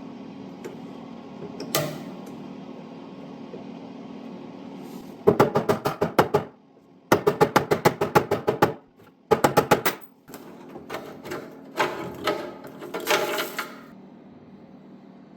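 Rapid mechanical clicking, about seven clicks a second, in three runs of one to two seconds each, then a few scattered clicks, over a steady low hum.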